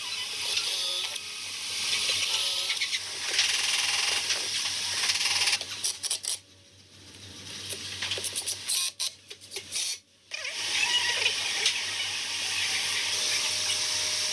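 Cordless drill running as it bores into and drives screws through a pine seat top, a steady whirring with a hiss of wood, stopping briefly twice between holes.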